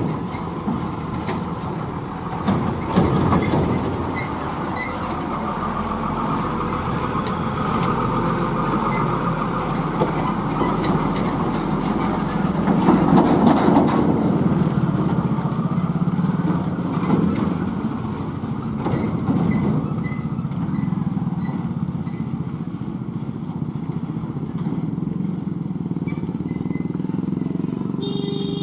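Tata 3718 multi-axle tanker truck's diesel engine running as it drives past slowly over a dirt track, with tyre noise on the dirt. It is loudest about halfway through as the truck goes by.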